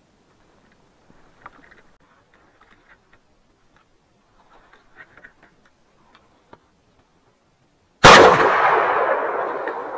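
Faint rustling of steps through dry grass and forest litter, then about eight seconds in a single loud rifle shot that echoes and dies away slowly over the next few seconds. The shot is taken at a running roe deer and brings it down.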